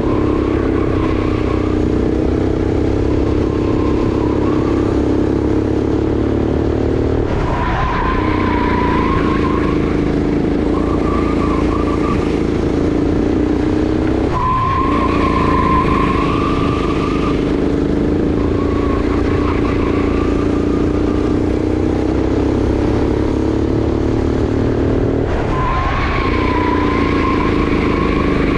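Sodi RX8 rental kart's 390 cc four-stroke engine running hard, its revs dipping sharply three times as the kart slows for corners, then pulling back up. Tyres squeal through the turns.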